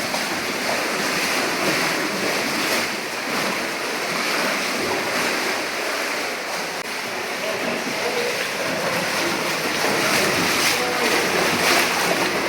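A 93-foot underground waterfall: a steady, loud rush of falling water.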